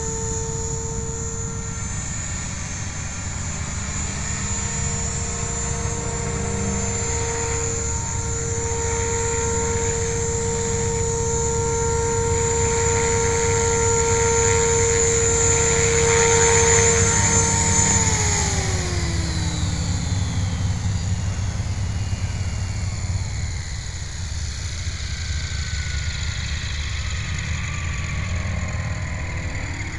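Align T-Rex 500 electric RC helicopter's rotors and brushless motor whining steadily with a low rushing noise beneath. About two-thirds of the way through the whine falls in pitch as the rotors spool down on the ground after landing.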